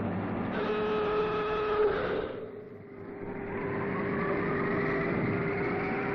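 Turboprop engine running on a test bed: a steady whine, a brief dip in level about two and a half seconds in, then a whine that slowly rises in pitch as the engine and propeller spin up.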